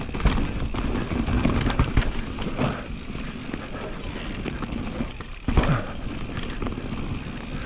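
Norco Range VLT e-mountain bike rattling down a rough, snow-covered trail: steady rumble of tyres and wind on the microphone, with several hard knocks and thumps as it rides over logs and rocks, the sharpest about a third of a second in, at two seconds and near six seconds.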